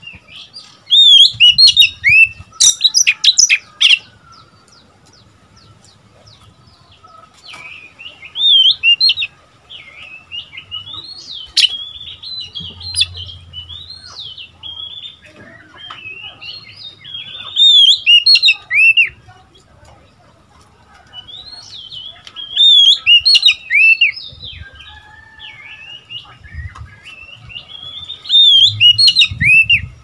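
Oriental magpie-robin song: loud, varied whistled phrases with quick up-and-down notes, in five bouts a few seconds apart, with softer twittering between them.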